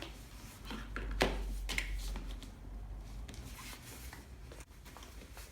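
Hands handling a stroller's padded footmuff and harness: fabric rustling with several short clicks of plastic parts, the sharpest about a second in.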